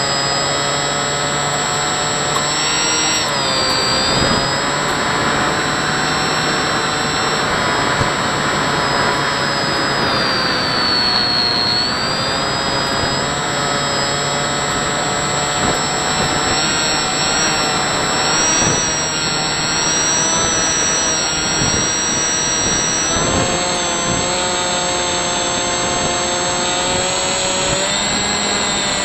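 Electric motor and propeller of a Hubsan Spyhawk model plane whining in flight, heard through the onboard camera's microphone with wind rushing past. The pitch drops and rises several times as the motor speed changes.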